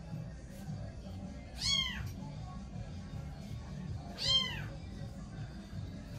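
A cat meowing twice, each a short, high call that rises and falls, about two and a half seconds apart, over low background music.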